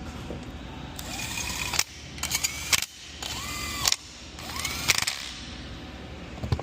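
Cordless power tool running bolts down on an intake horn in four short bursts about a second apart. In each burst the motor whine rises in pitch and ends with a sharp click.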